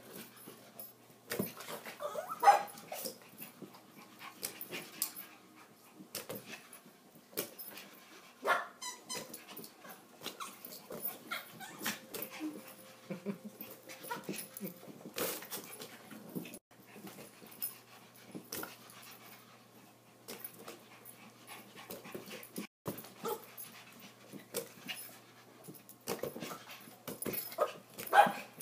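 Yorkshire terriers playing with a balloon: irregular taps and thumps as they jump at it and knock it about, with a few short dog cries, growls and whimpers, loudest about two seconds in, around eight seconds in and near the end.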